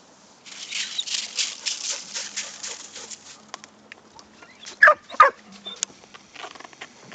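Lake ice on a frozen lake shifting: a quick run of crackling ticks, then two loud, sharp, chirping cracks about five seconds in.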